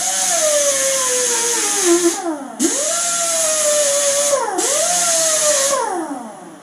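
Hand-held grinder stripping paint off a steel plow frame, loud. It runs in three bursts, each starting with a sharply rising whine that then slowly sags in pitch, with short breaks about two and four and a half seconds in, and winds down near the end.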